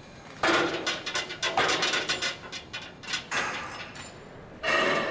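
Metal gym weights clanking and scraping, with some ringing: four loud bursts of clinks and knocks, the first about half a second in and the last near the end.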